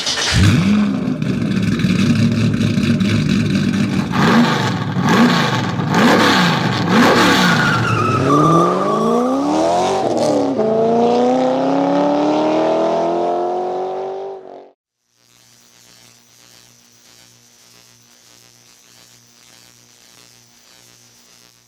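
A car engine revving up and down several times, then pulling away with a long rising pitch that fades out about two-thirds of the way through. A faint, steady, evenly pulsing sound follows.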